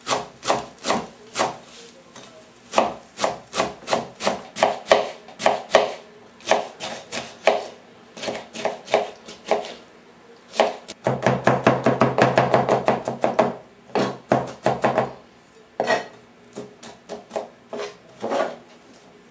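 Kitchen knife chopping fresh herbs on a cutting board: a long run of sharp chops, several a second. The chopping turns faster and denser for a few seconds about eleven seconds in, with short pauses in between.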